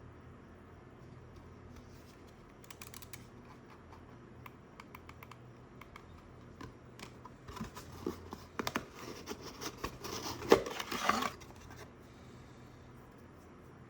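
Packaging being handled during an unboxing: scattered light clicks and taps, then a busy stretch of scraping, rustling and tearing from about halfway in, with one sharp knock near the end of it.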